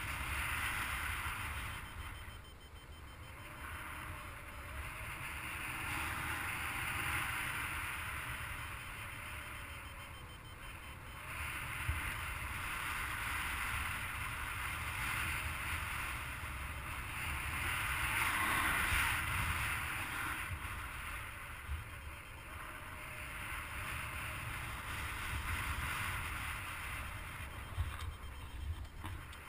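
Wind rushing over the microphone of a paraglider in flight: a steady low rumble with a hiss that swells and eases every few seconds.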